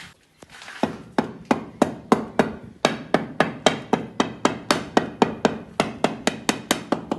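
Hand hammer striking in a steady run of sharp blows, about three a second, during fitting of a granite window frame into a masonry opening.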